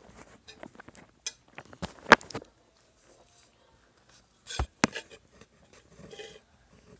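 Small hard objects being handled: scattered clicks and knocks. The loudest is about two seconds in, and two sharp ones come close together past the middle.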